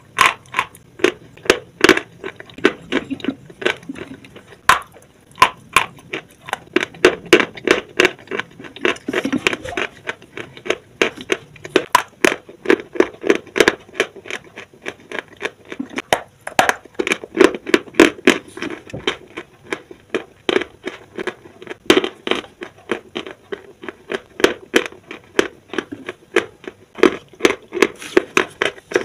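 Close chewing and crunching of dry white chalk chunks: a rapid, uneven run of sharp crunches, a few a second, with louder bites now and then.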